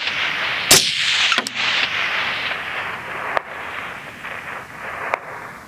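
A 5.56 rifle firing 77 grain AAC open tip match ammunition at long range: one loud shot about a second in, followed by a long echo that rolls back off the hills and fades over several seconds. Fainter sharp cracks come through the echo.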